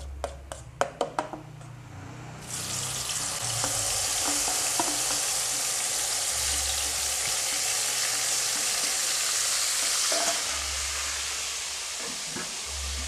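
A few sharp taps of a spatula against a steel bowl, then about two and a half seconds in, ground chili paste hits hot oil in a wok and starts sizzling, a steady frying hiss that carries on as the paste is scraped in.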